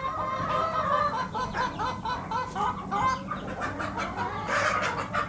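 A flock of chickens clucking, many short calls overlapping several times a second, with a brief rustling noise about four and a half seconds in.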